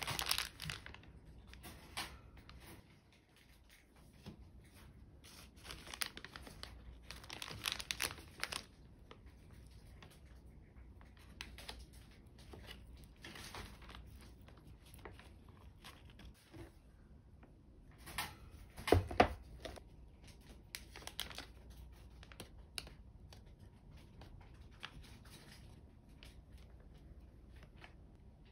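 Clear plastic zipper storage bag crinkling and rustling in irregular bursts as it is opened and handled, with one louder burst about two-thirds of the way in.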